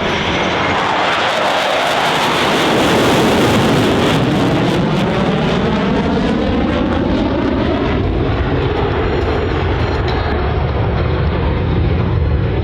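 EA-18G Growler's twin General Electric F414 jet engines roaring on a low pass. The roar is loudest about three seconds in, and its tone sweeps downward as the jet goes by.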